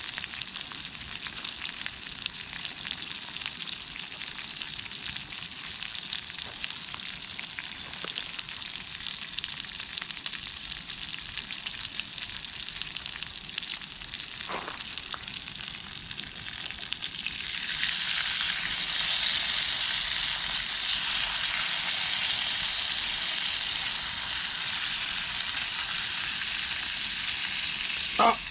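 Formed meat sizzling steadily as it grills over a campfire, growing louder about two-thirds of the way through. A brief sharp sound comes near the end.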